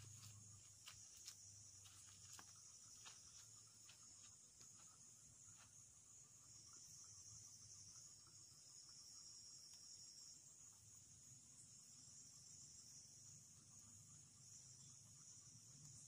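Faint, steady, high-pitched chorus of night insects, with a few faint clicks in the first several seconds.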